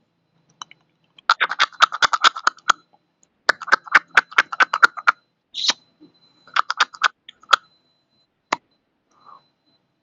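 Sharp clicks or taps coming fast, several a second, in three runs of about a second each, with a few single clicks between.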